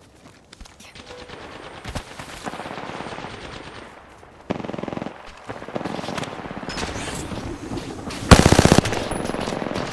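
Video game gunfire: scattered shots and game effects, then a loud, rapid burst of automatic fire about eight seconds in.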